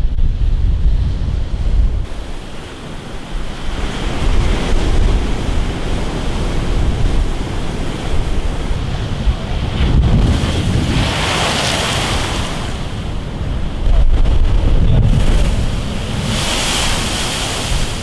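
Rough sea surf breaking and washing in, with wind buffeting the microphone. A hissing surge of white water swells up twice, about halfway through and again near the end.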